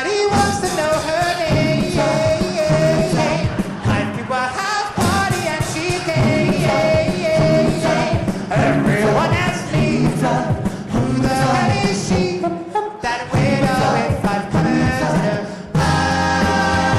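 An a cappella vocal group singing a pop song in harmony, with percussive hits kept in time underneath; the percussion is the group's own vocal percussion. The sound dips briefly near the end, then comes back in with a fuller held chord.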